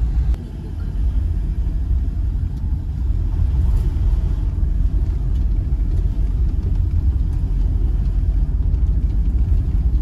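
Steady low rumble of a Toyota car driving, heard from inside its cabin: engine and road noise, briefly quieter just after the start.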